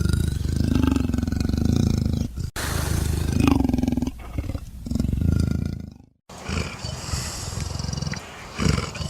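Big cat growling and roaring in several long, deep bouts, broken by a sudden cut about two and a half seconds in and a brief silence about six seconds in.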